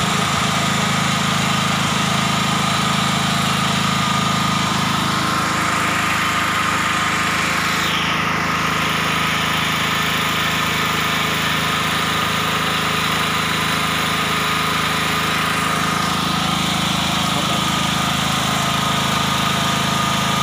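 7000 W portable petrol generator's air-cooled engine running at a steady, unchanging speed.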